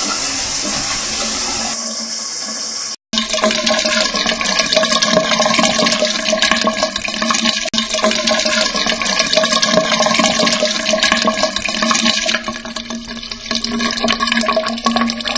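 Shower water running and spraying steadily, with a steady low hum in it. It cuts out briefly about three seconds in, then carries on.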